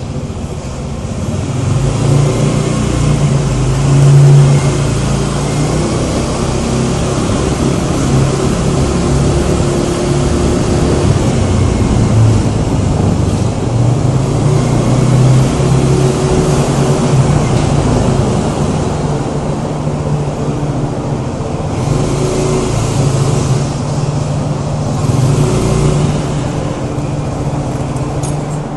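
Honda Scoopy scooter's single-cylinder engine running on the road amid traffic, with heavy wind rush on a phone microphone taped to the rider's helmet. The engine note swells and eases, loudest about four seconds in, and hissing swells pass near the end.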